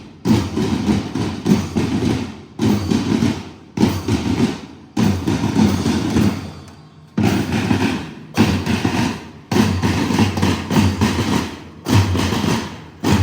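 School marching band drums beating a slow, steady march. There is a heavy hit about every second and a bit, each one fading before the next, with one longer gap midway.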